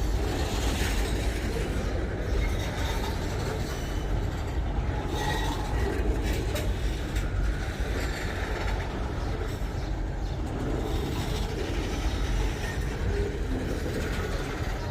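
Freight train wagons rolling past: a steady rumble of steel wheels on the rails.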